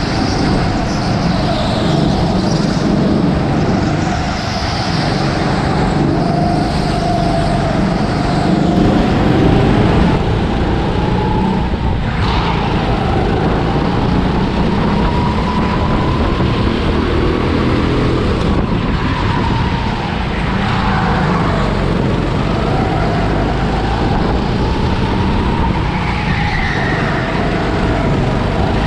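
Onboard sound of an indoor rental go-kart at racing speed. The kart's motor whines, its pitch rising and falling as it speeds up and slows through the corners, over a steady rush of tyre and running noise.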